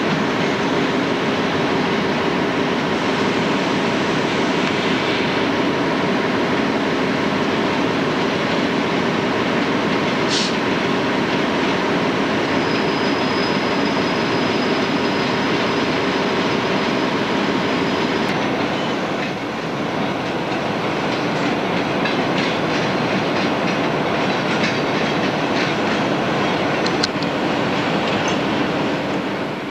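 A Bombardier LRC locomotive running steadily at close range: a constant hum over a loud rumble. Scattered clicks come in the last third.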